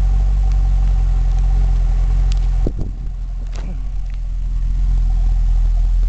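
Stock exhaust of a 2010 Camaro SS's 6.2-litre V8, idling steadily. About three seconds in, the sound dips suddenly and comes back up over the next two seconds.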